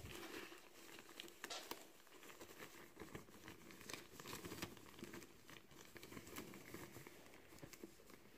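Faint rustling of a nylon stocking and scattered small clicks of glass beads as the bead-filled stocking is handled and pushed into a vinyl doll head.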